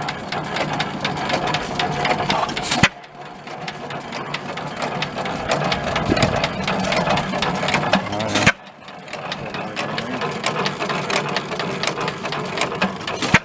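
Antique stationary gas engine running with a rapid, even mechanical clatter, with talk in the background. The sound breaks off abruptly twice, about 3 and 8.5 seconds in.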